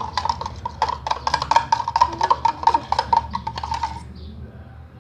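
A spoon tapping rapidly against the side of a cup, several quick clinks a second, as egg whites are beaten in it, with a steady ringing tone under the taps. The tapping stops about four seconds in.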